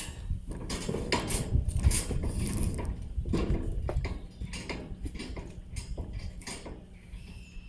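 Irregular mechanical clicking and rattling, busiest in the first four seconds, then fainter.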